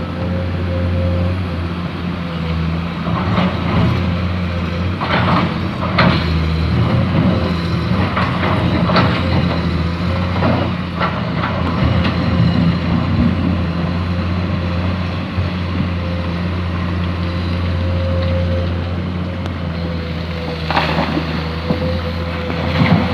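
Excavator's diesel engine running steadily with a steady high whine over it, while the bucket scrapes and clunks in sand in a series of knocks between about 3 and 13 seconds in and again near the end.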